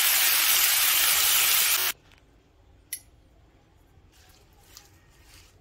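Wet chopped spinach sizzling in hot oil in a pan: a loud, even hiss that cuts off abruptly about two seconds in. After that it is quiet apart from a single sharp click about three seconds in.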